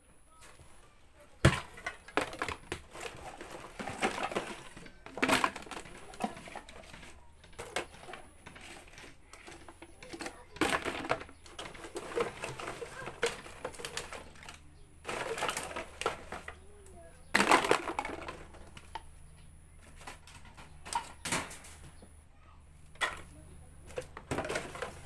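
Empty plastic bottles clattering and crinkling as they are handled and dropped into woven plastic sacks, in irregular bursts with sharp knocks now and then.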